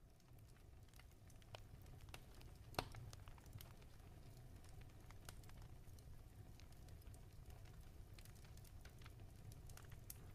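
Near silence: faint room tone with a low hum and scattered faint clicks, one a little sharper about three seconds in.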